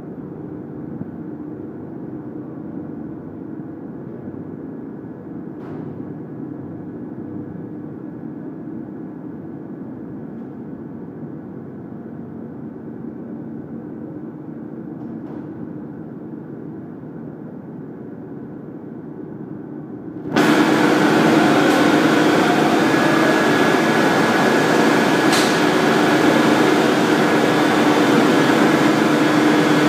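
Heavy rubber-processing machinery, a Banbury internal mixer and the roll machine beside it, running with a continuous drone and a steady low hum. About twenty seconds in it abruptly turns much louder and brighter and stays so.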